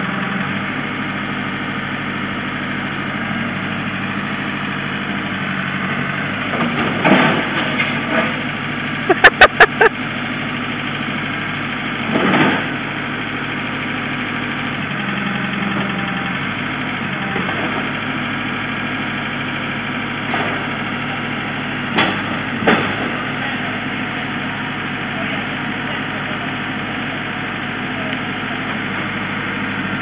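Backhoe engine running steadily as the arm works, with a handful of loud knocks over it; the loudest is a quick run of five about a third of the way in, and there are single ones later.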